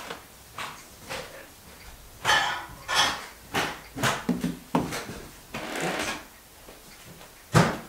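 Pen scratching across paper in short strokes, mixed with a series of knocks and bumps on the table; a sharp knock near the end is the loudest.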